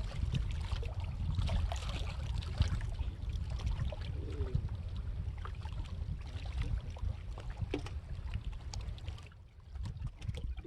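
Water lapping and trickling over a steady low rumble, with scattered small clicks.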